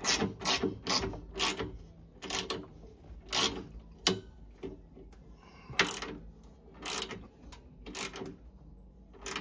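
Small Wera hand ratchet clicking as it tightens the burner-door nuts on a Vaillant boiler. The clicks come quickly, about four a second, for the first second and a half, then slow to single strokes roughly a second apart as the nut is done up tight.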